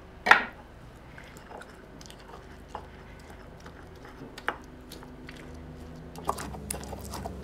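Volcanic stone molcajete and tejolote mashing cooked chile perón: soft squishing with scattered clicks of stone on stone, picking up near the end. One sharp knock just after the start.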